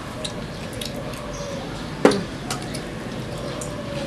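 Spoons clinking and scraping on plates during a meal, with one sharp, louder knock of utensil on dish about two seconds in.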